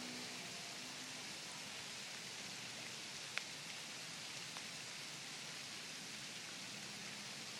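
Steady rain falling, with a few sharp ticks, the loudest about three and a half seconds in.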